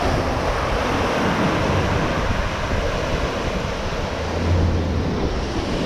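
Steady rushing wind on the microphone over the low rumble of an Isuzu pickup truck driving through deep mud.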